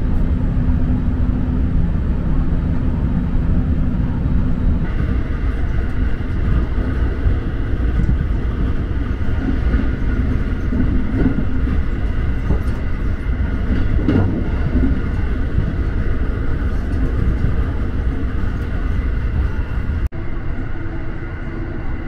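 JR West 223-series electric train heard from inside the carriage while running: a steady low rumble of wheels on rail, joined about five seconds in by a set of steady high tones. Near the end the sound cuts abruptly to a quieter, steadier carriage hum.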